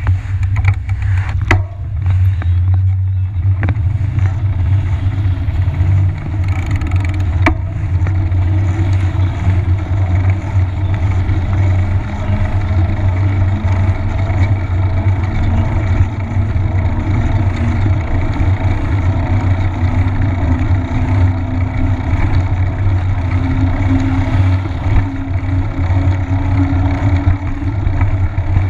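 Steady low rumble of a bicycle riding on city asphalt, heard through a handlebar-mounted camera: wind on the microphone and the knobby front tyre rolling. A few sharp clicks come in the first several seconds.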